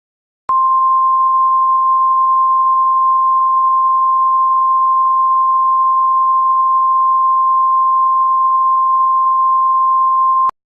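Emergency Alert System attention signal: the National Weather Service's single-tone alarm, one steady high tone starting about half a second in, held for about ten seconds and cutting off abruptly, the signal that a spoken warning message follows.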